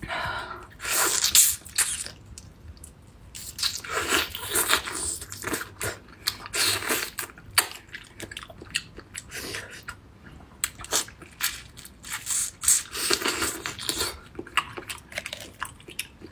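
Close-miked eating: a person chewing and biting food, wet mouth sounds and clicks coming in irregular bursts.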